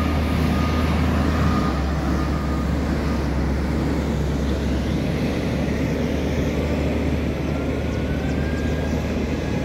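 Caterpillar wheel loader's diesel engine running steadily as it drives with a log grapple, a constant low rumble.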